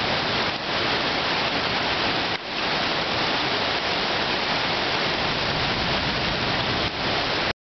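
Torrential rain and muddy floodwater rushing across a flooded street, boiling up by the kerb: a loud, steady rush of water noise, dipping briefly twice.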